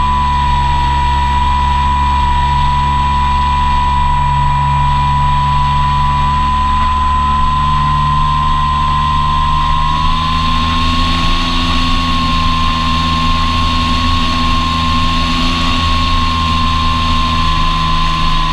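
Electric motor and propeller of an Apprentice S 15e RC airplane whining steadily in flight, with a rush of air over the onboard microphone. The pitch rises slightly about halfway through and starts to drop right at the end as the throttle comes back.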